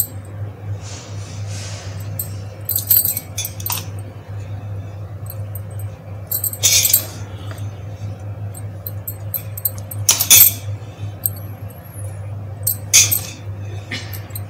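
Glass bangles jingling and clinking in short bursts, several times, as hands spread rice in a steel pot, over a steady low hum.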